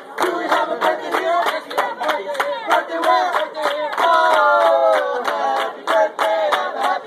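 A group of people singing a birthday song together and clapping along in a steady, quick rhythm of about three claps a second. About four seconds in, the voices hold a long note that slides down before the clapping and singing go on.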